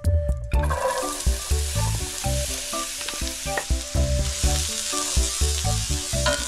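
Diced celery and onion hitting a hot pan of butter and oil and sizzling, with the hiss starting sharply about half a second in, while a wooden spatula stirs them.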